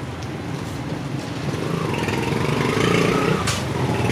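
A motor vehicle's engine running, growing louder from about halfway through, over general street noise.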